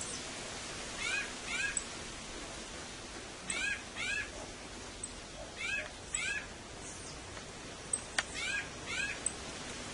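Great fruit-eating bats squeaking at their roost: short, high squeaks in pairs about half a second apart, the pairs repeating every couple of seconds. A single sharp click comes near the end.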